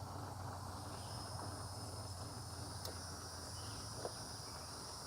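Faint outdoor ambience of insects chirring steadily, with a small tick about four seconds in. No starter motor or engine is heard: the Kubota BX2680 fails to crank when the key is turned.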